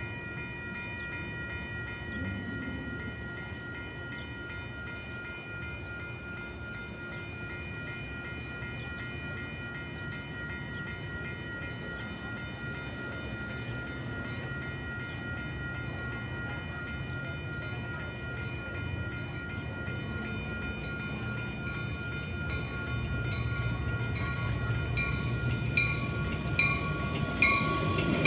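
A train approaching over the rails, its rumble building steadily louder over the last several seconds, with a regular clicking coming through as it nears. A steady high hum of several tones runs underneath throughout.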